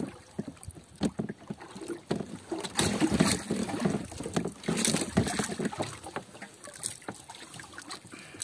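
Water sloshing and splashing at the side of a small fishing boat, with irregular knocks and clatter, busiest in the middle.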